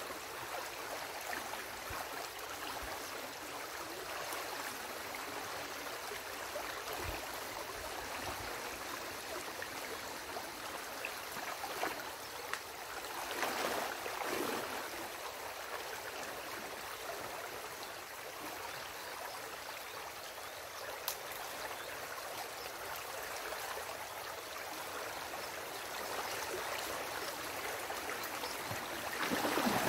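Muddy stream water rushing and gurgling through a breach in a beaver dam, steady throughout. Louder splashing comes about halfway through and again near the end.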